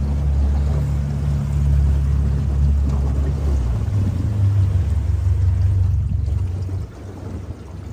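Boat's outboard motor running, a low steady hum that shifts pitch about three to four seconds in and quietens near the end.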